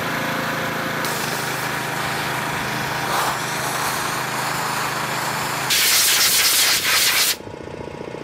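Sandblaster blasting rust off cast-iron anchor winch parts: a steady hiss of the blast over a steady machine hum. About six seconds in the hiss grows louder and sharper for a second and a half, then cuts off.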